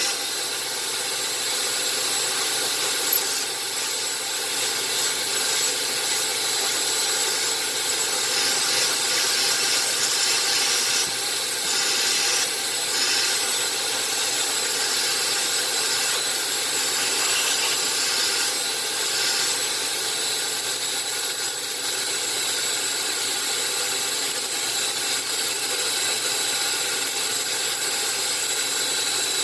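A small vacuum cleaner running steadily, sucking dust out of the inside of a laptop, with a brief click about three seconds in.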